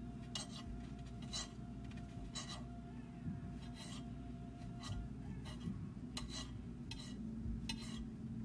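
Kitchen knife cutting bread into cubes on a glass plate: repeated short strokes, roughly one or two a second, each a brief scrape and tap of the blade on the glass.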